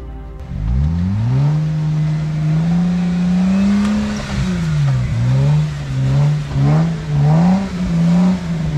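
A Jeep Wrangler's engine revs under load as it crawls up a snowy rock slope. The revs climb in the first second or so and hold fairly steady. In the second half the throttle is worked up and down in quick, repeated rises and falls.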